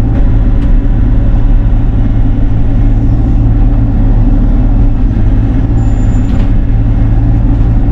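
Bobcat E42 mini excavator's diesel engine running steadily under work.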